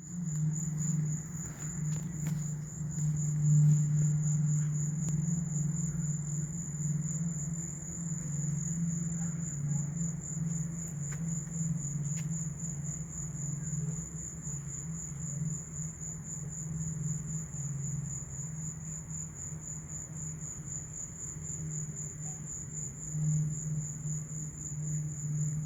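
A steady low humming of unknown origin, with a continuous, finely pulsing high-pitched tone above it.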